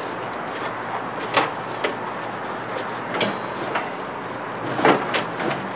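A wooden battery box being pushed and wedged into the Pulse Ecoped e-bike's battery compartment: a handful of short knocks and scrapes of wood against the bodywork, the loudest near the end, over a steady background hiss.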